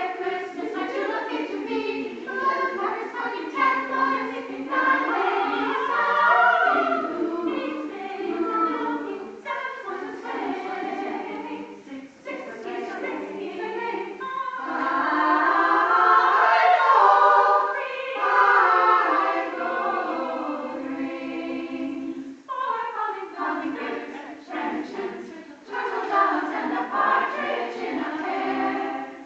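Choir of women's and girls' voices singing together, swelling to its loudest about halfway through.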